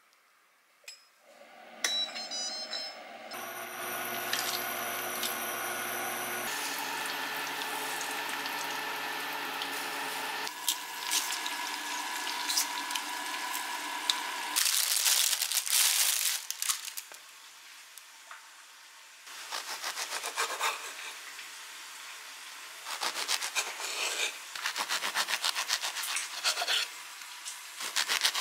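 Kitchen sounds in turn: a pot of prawn broth sizzling and bubbling on the hob, then a serrated bread knife sawing through a crusty loaf in quick back-and-forth strokes.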